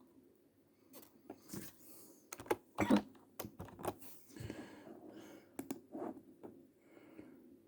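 A scatter of short, irregular clicks and taps, the loudest about three seconds in.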